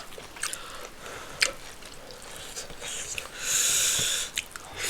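Close-up eating sounds from a person eating rice and stew: scattered wet mouth clicks while chewing, and one sharp breath or sniff through the nose about three and a half seconds in, the loudest sound.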